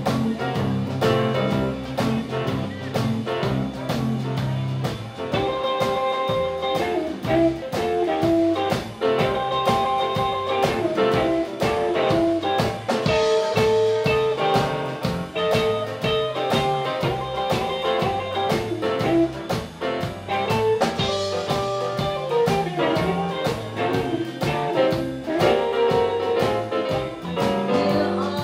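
Live blues band playing an instrumental passage: electric guitar, bass and keyboards over a drum kit keeping a steady beat, with held chords coming in about five seconds in.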